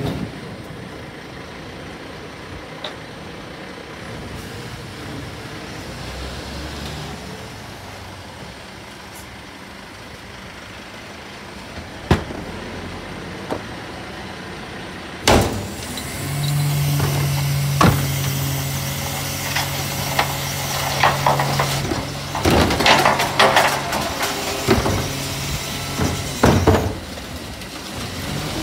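Bucher rear-loader garbage truck at the kerb: engine running steadily with a few sharp metal clanks, then a steady low hum sets in just past the middle as the hydraulics work. Loud clattering and knocking of the compactor and rubbish follows near the end.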